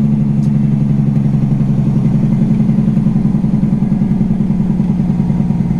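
Semi truck's diesel engine running loudly at steady revs, with a rapid, even, clattering pulse.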